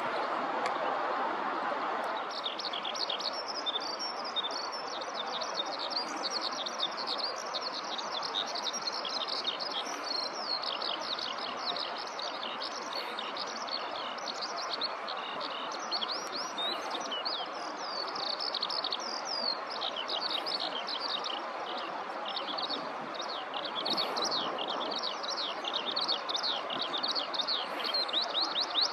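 Eurasian skylark singing from the ground: a long, unbroken stream of rapid high chirps and trills that begins about two seconds in, over a steady background rush.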